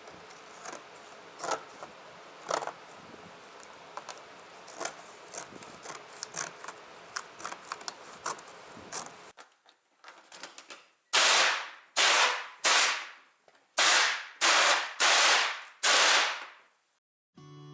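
Fiberglass layup being worked off a thin aluminum flashing form: scattered sharp cracks and crinkles over a steady hiss for about nine seconds. Then come seven loud hissing bursts, each about half a second long and fading out.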